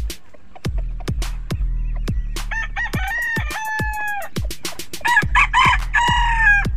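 A rooster crowing twice, first about two and a half seconds in and again near the end, each crow a long held call, over background music with a steady beat.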